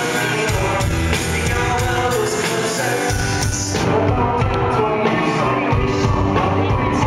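Rock band playing live, a male lead singer singing over guitars, keyboards and drums. The sound turns duller about four seconds in.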